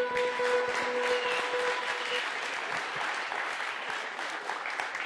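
Audience applauding. Over the first two seconds the last held notes of music fade out beneath the clapping, and the applause tails off toward the end.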